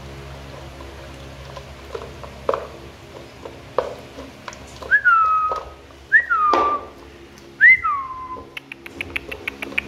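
Belgian Malinois puppy eating dry kibble from a plastic bowl, with scattered crunches and clicks of kibble against the bowl and a quick run of small ticks near the end. About halfway through come three loud whistled notes, each a quick rise and then a falling glide, roughly a second and a half apart.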